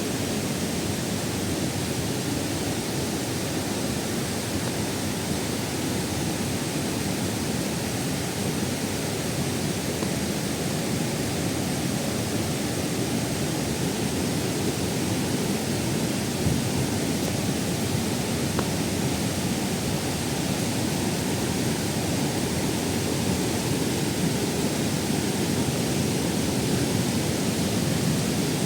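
Waterfall rushing steadily, an unbroken roar of falling water.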